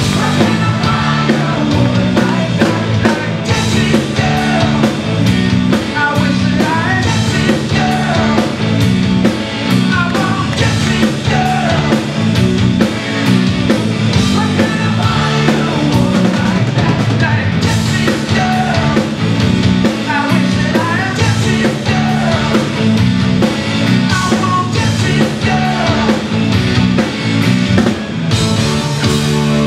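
Live rock band playing loudly: electric guitar, bass and drum kit, with a male lead vocal singing over them.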